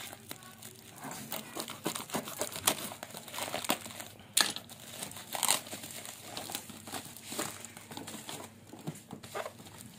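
Cardboard parcel being cut and torn open with a utility knife: rustling and tearing of cardboard and packing tape, with many irregular short sharp cracks.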